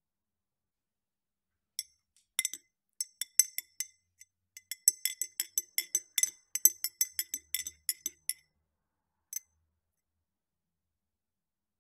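Metal spoon stirring an iced drink in a ribbed glass, a quick run of sharp clinks against the glass and ice that starts about two seconds in and stops after about six seconds, followed by one last clink.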